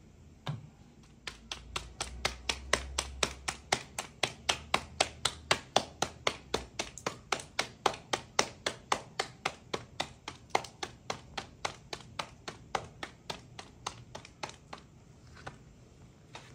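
Roti dough slapped back and forth between the palms to flatten and stretch it by hand: a steady run of sharp slaps, about three or four a second, dying away near the end.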